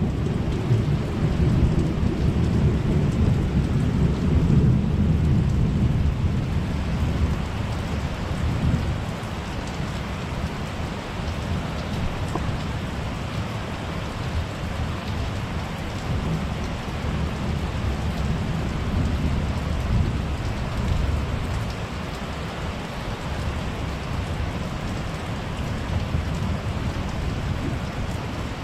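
Thunder rumbling over steady, not very heavy rain. The rumble is strongest in the first eight or nine seconds, then dies down while the rain keeps hissing.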